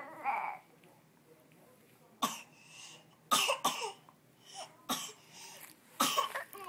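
A toddler babbling briefly, then coughing in about five short, sharp bursts spaced roughly a second apart.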